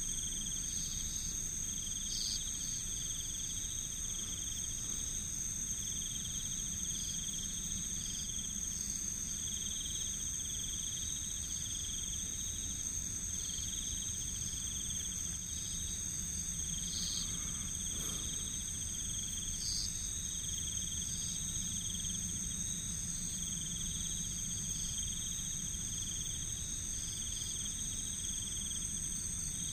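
Night insects calling steadily: a continuous high shrill, with a lower trill beneath it that swells and fades about every two seconds and a few short chirps above it.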